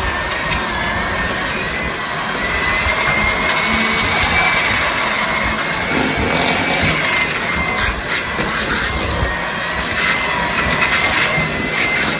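Electric mixer motor running steadily with a high whine that wavers slightly in pitch as it beats boiled sweet potatoes, which pulls the stringy fibres out of the mash.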